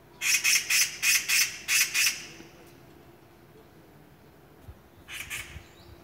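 A bird giving loud, harsh calls: a quick run of about seven in the first two seconds, then a short pair near the end.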